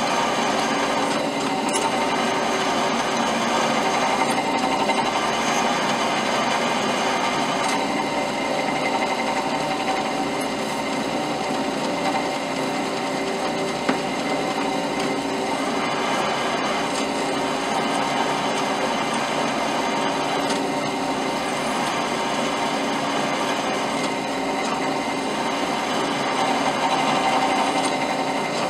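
Drill press running steadily, a number 6 twist drill boring into a hardened steel bolt lubricated with a little oil: a constant motor hum with the grind of the bit cutting the steel.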